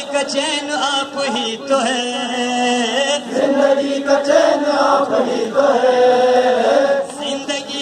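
Group of men chanting a nauha, a Muharram lament, together in a slow melodic line, with short slaps of chest-beating through it.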